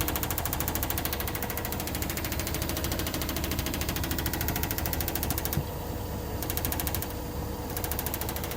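LG washing machine spinning, with a fast, even knocking over the hum and rumble of the drum: an unexplained knock during the spin cycle.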